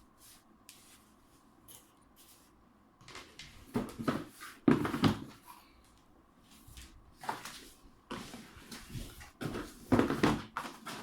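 New laptop being unwrapped from its protective wrapping: a few irregular bursts of rustling and handling noise, starting a few seconds in.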